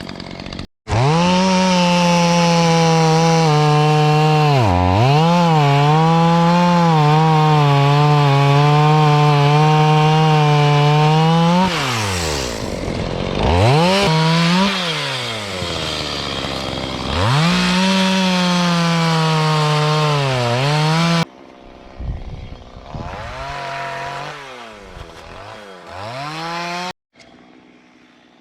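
Stihl chainsaw running at full throttle as it cuts through dry tamarack, its pitch dipping briefly as the chain bogs in the wood. In the middle it drops to idle and revs back up, and it sounds quieter and farther off in the last few seconds.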